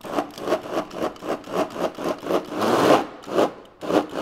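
Electric mini chopper blending chickpeas, cooked beetroot and tahini into hummus: the blade churns through the thick mixture in rapid even pulses, about four or five a second, swelling louder a little before three seconds in.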